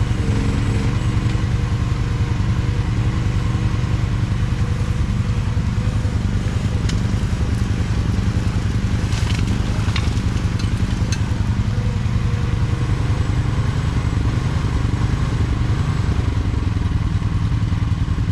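Mini excavator engine running steadily under load, with a few brief knocks and scrapes around the middle as the bucket works gravel.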